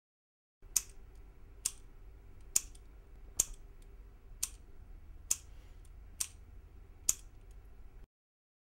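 Retractable click pen being clicked eight times at an even pace, about one sharp click a second, over a faint room hum.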